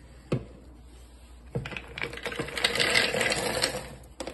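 Mixed nuts (hazelnuts, pecans, walnuts, cashews) poured into a plastic food-processor bowl: a rattling patter of nuts hitting plastic, building up and dying away over about two seconds. A single click comes before it and a couple of sharp clicks near the end.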